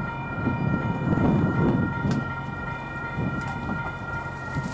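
Railroad grade-crossing warning bells ringing steadily as the crossing gates lower for an approaching freight train. A low rumble swells about a second in and fades by two seconds.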